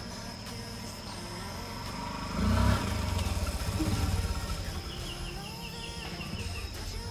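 Yamaha Exciter 2010 motorcycle's 135 cc single-cylinder four-stroke engine running as the bike rides close past, loudest about two and a half seconds in, then fading as it moves away.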